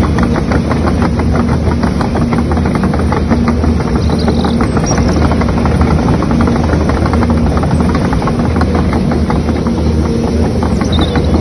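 Excavator engine sound running steadily at a constant speed with a fast, even knocking beat.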